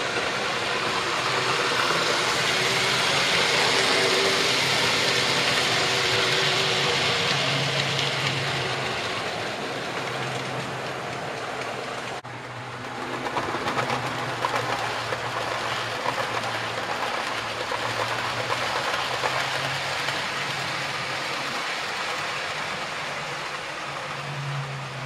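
Model railway trains running on the layout: a steady whirr and rumble of motors and wheels on the track, with small clicks of wheels over rail joints. The sound breaks off sharply about halfway, then resumes with more distinct clicking.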